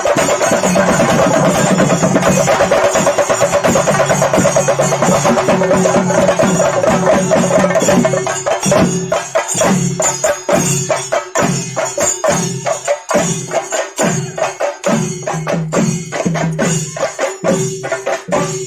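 Chenda drums beaten with sticks: a dense, rapid roll for the first half, which breaks about halfway into separate loud strokes about two a second.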